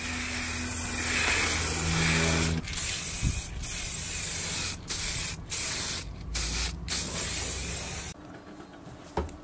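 Aerosol spray paint can spraying: one long hiss of about two and a half seconds, then a run of shorter bursts, stopping about eight seconds in.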